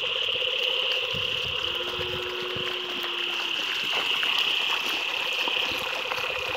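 Feet and cattle hooves splashing and sloshing through shallow floodwater, over a steady high-pitched chorus in the background.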